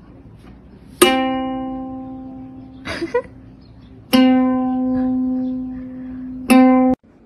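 A cat's paw plucking an open ukulele string three times, each note ringing out and fading. The third note cuts off abruptly.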